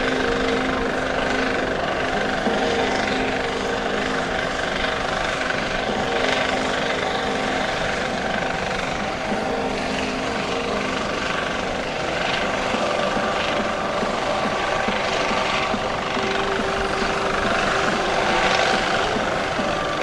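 US Coast Guard MH-65D Dolphin helicopter hovering: steady rotor and turbine noise with a whine of several steady tones, the lower tones changing pitch about two-thirds of the way through.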